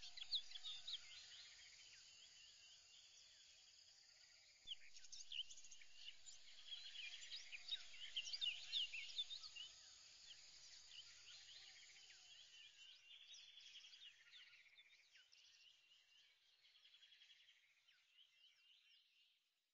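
Faint bird chirping, many short rising calls over a steady high hiss, growing a little louder about five seconds in and fading out near the end.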